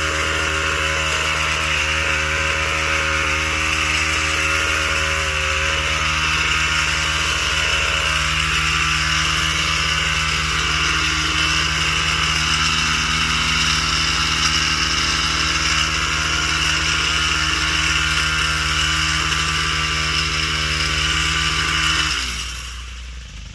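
Small gas engine of a yard power tool running steadily at a constant speed with a strong hissing edge, then shut off about a second before the end, its pitch falling as it winds down.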